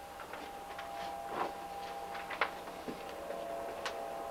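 Faint, irregular clicks and taps from a camcorder being carried and handled, over a steady faint electrical hum.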